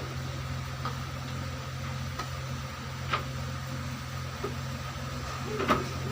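Steady low mechanical hum, with a few faint clicks and one sharper knock near the end.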